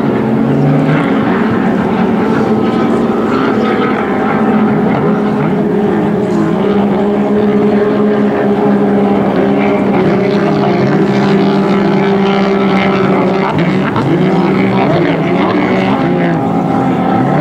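Several racing jet-ski engines running together, their overlapping pitches wavering up and down as the craft go round the course.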